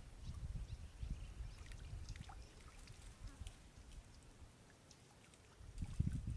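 Water sloshing and dripping around a man wading waist-deep while he gathers in a cast net, with small drips and a louder slosh about six seconds in.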